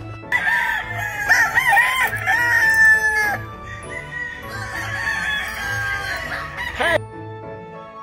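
Gamefowl roosters crowing: one long crow with a wavering start a little after the start, then a second, fainter crow that ends with a sharp swoop about seven seconds in. Background music with a steady beat plays underneath.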